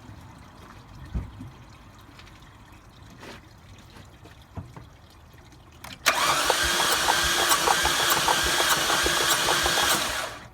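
After a few faint clicks, the starter cranks the 2014 Chevy Sonic's engine for about four seconds, a steady churning with regular pulses, and the engine does not catch. The cranking is a compression test on cylinder 1, and the engine has very low compression, under 30 psi per cylinder.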